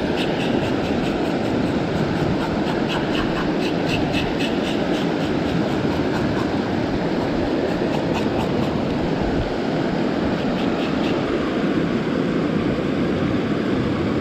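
Steady rush of a river flowing over stones, holding an even level. Over it, a few runs of quick, fine ticking come and go, in the first few seconds and again after about eight seconds.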